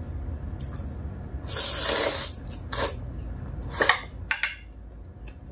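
Instant noodles slurped into the mouth: one long slurp lasting under a second, about a second and a half in, then a few shorter slurps.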